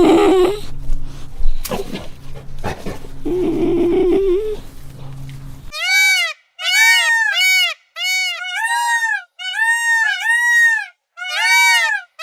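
Sheep bleating, two long wavering bleats in the first half. From about halfway a different sound takes over: a rapid series of short, high-pitched arching calls in clipped groups with silent gaps between them.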